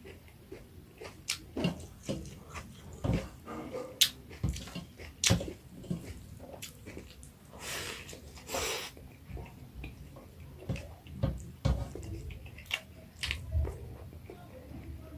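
Close-miked eating sounds: irregular mouth clicks and smacks of chewing, with a couple of longer noisy sounds around the middle.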